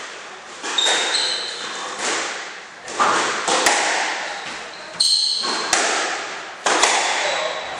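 Squash rally: the ball struck by rackets and smacking the walls, about every second, each hit echoing around the enclosed court, with short high squeaks of court shoes on the wooden floor.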